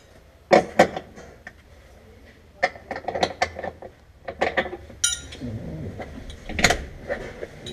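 Ratchet wrench clicking in short runs as a striker bolt is snugged up, with a louder knock about two-thirds of the way through.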